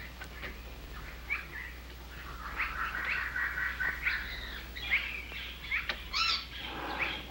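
Jungle bird sound effects: many short, scattered chirps and whistling calls, busiest in the middle of the stretch.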